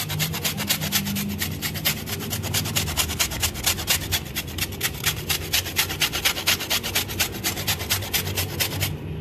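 A block of mozzarella cheese rubbed quickly back and forth on a flat stainless steel hand grater. The scraping comes as an even run of rapid strokes, several a second, and stops near the end.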